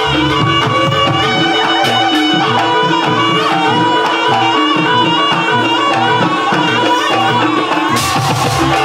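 Jaranan Banyuwangi gamelan accompaniment: hand drums beating a busy, steady rhythm under a sustained reedy melody, with a metallic clash near the end.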